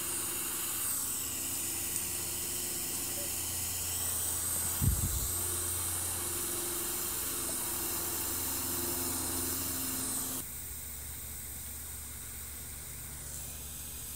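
Steady hiss with a low electrical hum, one brief low thump about five seconds in, and the hiss dropping noticeably about ten seconds in.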